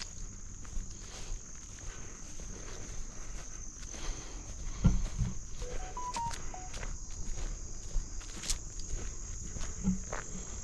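A steady high-pitched drone of late-summer insects, with irregular footsteps on the trail and a heavier thump about five seconds in.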